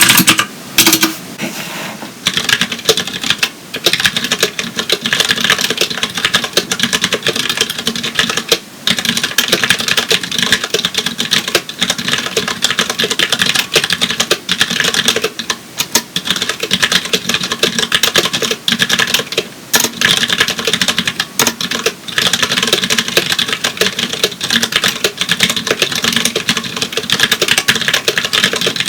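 Fast, continuous typing on a Tex Yoda keyboard with Cherry MX Clear tactile switches: a dense run of keystroke clicks with a few brief pauses.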